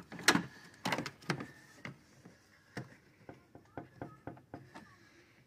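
Plastic cowl trim and rubber seal in a car's engine bay being handled and pressed into place: several sharp clicks and knocks in the first second and a half, then lighter ticks and rubbing.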